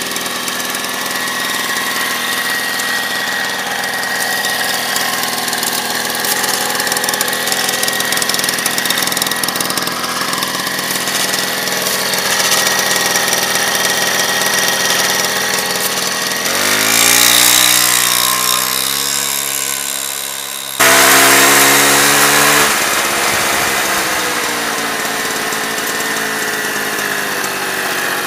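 Piaggio Bravo moped's 50 cc two-stroke engine running steadily, revving up about two-thirds of the way through and easing back down a few seconds later.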